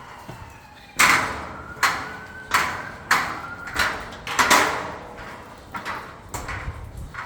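Footsteps on metal scaffolding, each step a ringing metallic clang, a steady walking rhythm of about one to two a second that starts about a second in and grows fainter near the end.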